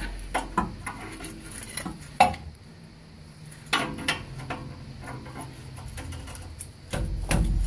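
Steel wrench clinking against a rust-seized exhaust oxygen sensor and the pipe around it as it is fitted and pulled on: a few sharp metallic clinks, the loudest about two seconds in, with the sensor not turning.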